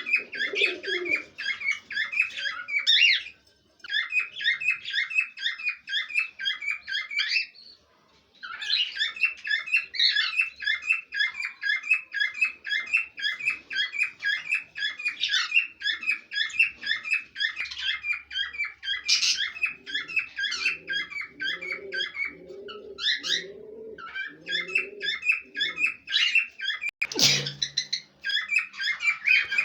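Pet parrots chirping and chattering in fast, continuous runs of high notes, broken by two short pauses. In the second half a lower call pulses about twice a second for several seconds, and a single sharp knock sounds near the end.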